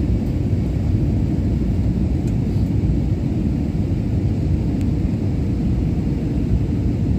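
Steady low rumble of engine and airflow noise inside the passenger cabin of an Airbus A320-family jet airliner descending on approach to land, with a faint steady hum under it.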